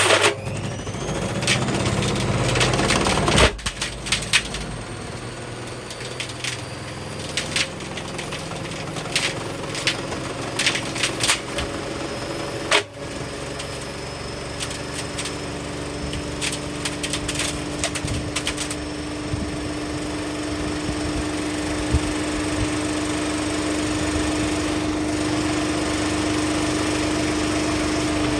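Candy washing machine running its drum at high speed while something hard batters around inside: rapid clattering and knocks over a steady motor whine, with heavy bangs twice. The knocking thins out over the last third.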